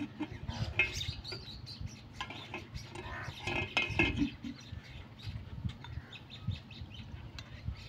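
Metal ladle clinking and scraping against a metal cooking pot, a run of short irregular clicks and knocks.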